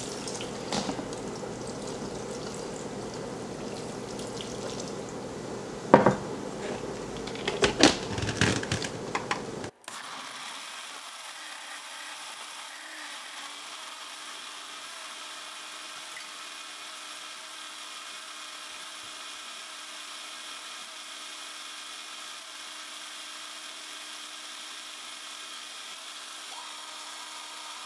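KitchenAid countertop blender running, puréeing fried guajillo and árbol chiles with onion, garlic and water into a sauce. A few knocks come around six to eight seconds in. About ten seconds in the sound changes abruptly to a steadier, thinner whir.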